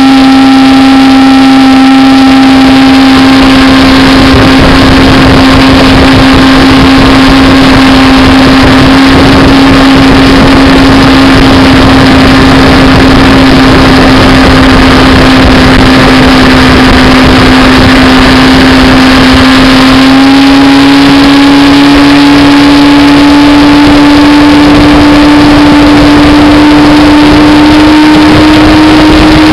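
Johnson 140 hp V4 two-stroke outboard motor running at speed under way, a steady engine note that steps up in pitch about two-thirds of the way through and keeps climbing slowly. Under it is a loud rush of wind and water.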